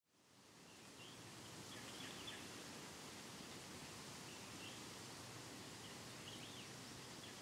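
Faint outdoor ambience fading in about a second in: a steady hiss with scattered distant bird chirps.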